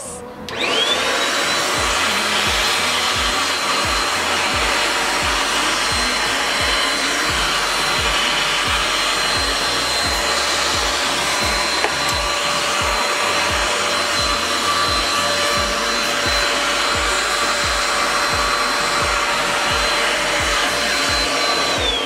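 Mondial Cyclo 2-in-1 stick vacuum, used as a handheld with its crevice nozzle, switched on: its motor whine rises to a steady high pitch within the first second and it runs evenly, sucking dust from a door track. It starts to wind down at the very end.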